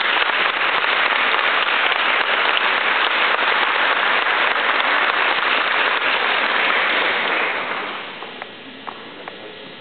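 Audience applauding steadily, the clapping dying away about eight seconds in and leaving a few scattered claps.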